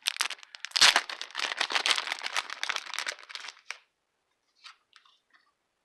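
Packaging crinkling and rustling as a mailed card is unwrapped, with a thump just under a second in. It stops after a few seconds, leaving a few faint clicks.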